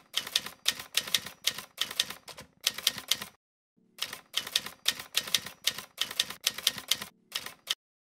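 Typewriter keys clacking in quick runs as a typing sound effect: a run of about three seconds, a short pause, then a second run of about four seconds that stops just before the end.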